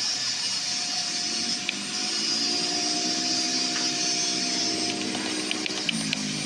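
Steady whirring hum of a running machine, with a thin high tone in it that stops about five seconds in. A few light metallic clicks near the end as a wrench is set on the clutch bolts.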